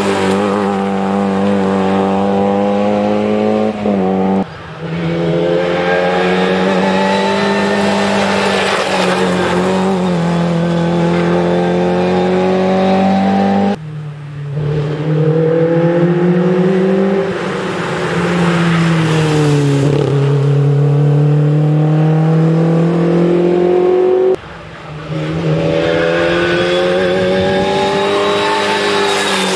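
Historic rally cars, Škoda Favorit hatchbacks among them, driven hard one after another: engines revving high, pitch sagging and climbing again through gear changes. The sound breaks off about four, fourteen and twenty-four seconds in, where a new car's run begins.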